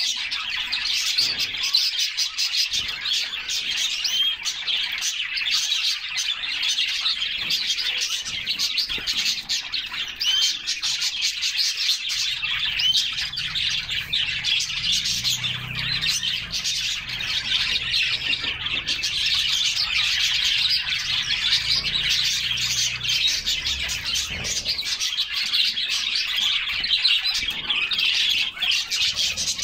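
A flock of canaries chirping and singing at once: a dense, continuous twittering chatter of many overlapping voices.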